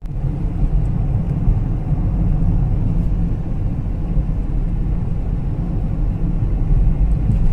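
Car driving on a paved road, heard from inside the cabin: a steady low rumble of engine and tyre noise.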